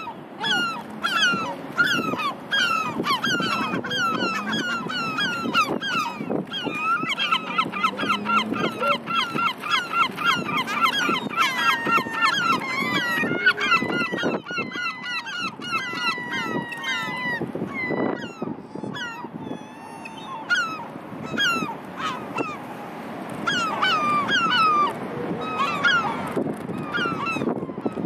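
A flock of herring gulls calling: many short, overlapping, falling calls in quick runs, busiest around the middle and easing off for a few seconds about two-thirds of the way through.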